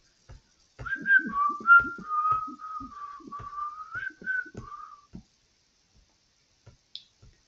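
A person whistling a short, wandering tune for about four seconds, the notes stepping up and down, over soft clicks of a computer mouse scrolling through files.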